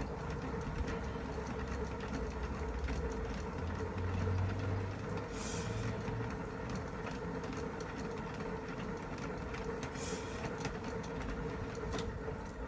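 Mini manual washing machine being turned by hand, its drum and gearing whirring steadily with a constant hum and light rapid clicking, and brief swishes of water and clothes every few seconds.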